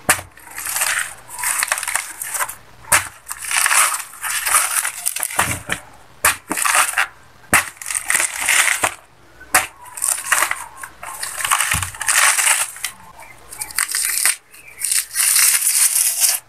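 Fibrous banana pseudostem sheaths being torn and peeled apart by hand, a crisp ripping and crunching that comes in repeated bursts of a second or so, with a few sharp cracks.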